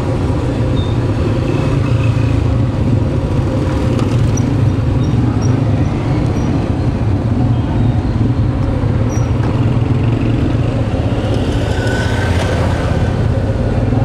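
Street traffic noise with a steady low engine hum.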